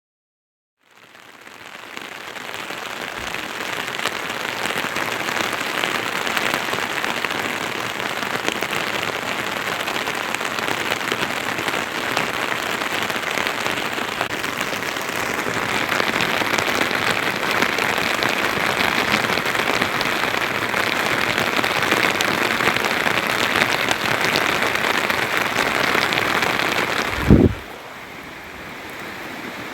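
Steady heavy rain falling, fading in from silence about a second in. Near the end a brief low thump, after which the rain drops to a softer level.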